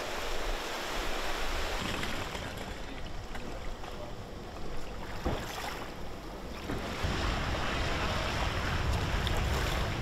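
Stormy wind and surf: a steady rush of waves and wind. About seven seconds in it gets louder, with wind buffeting the microphone.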